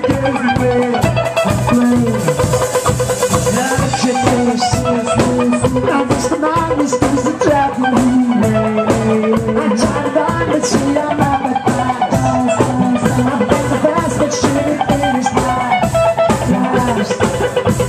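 Celtic band playing a traditional Irish tune live, with a quick, ornamented melody line over a steady drum beat.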